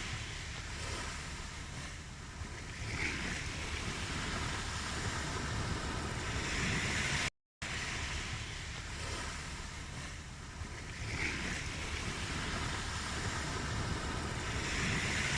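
Ocean surf: waves washing in and breaking in slow swells, about one every four seconds. The sound cuts out completely for a moment about halfway through.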